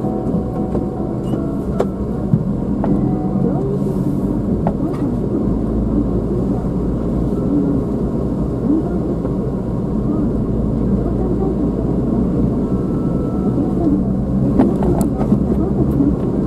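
Car driving on a winding road, heard from inside the cabin: a steady low rumble of engine and tyres that grows heavier about five seconds in.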